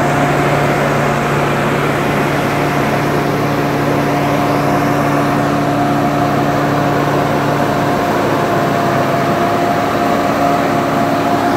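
Sonalika 60 RX tractor's diesel engine running at a steady speed under the load of the forage chopper it drives.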